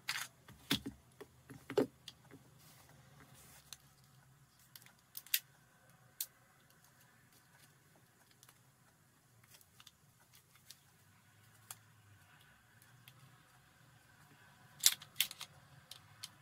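Swiss Arms P1911 air pistol being handled and stripped by hand: scattered clicks and clacks of its parts. A cluster of sharp clicks comes near the start, and another comes near the end as the slide is worked forward off the frame.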